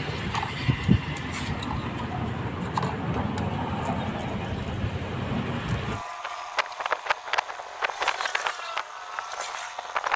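A vehicle engine runs steadily in the background for about six seconds, then stops abruptly. Close, quick scratching and clicking follow as the corroded horn push-button contact in a motorcycle switch housing is scraped clean with sandpaper.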